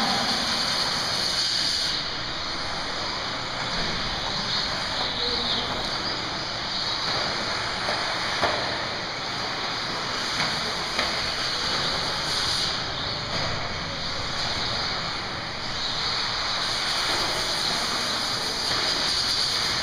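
Several 1/10-scale 4x4 radio-controlled off-road cars racing on a dirt track: a steady, fluctuating whine and hiss of their motors and tyres, with a few sharp knocks about halfway through.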